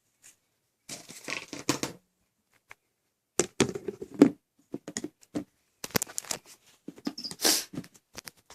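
Plastic tubs and packaging being handled: several bursts of rustling and crinkling, broken by sharp clicks and knocks.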